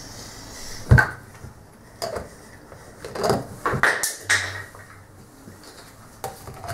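Kitchen handling noises from the barbecue sauce bottle: a sharp thump about a second in, then several shorter clicks and knocks over the next few seconds.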